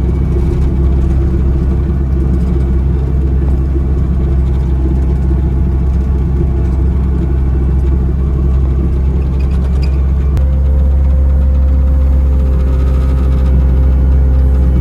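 Engine of heavy equipment running steadily with a loud low hum; a slightly higher tone joins it about ten seconds in.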